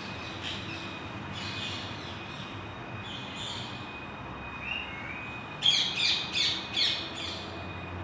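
Parrot calls: a few faint, scratchy calls in the first half, then a quick run of five loud, harsh screeches about two thirds of the way in.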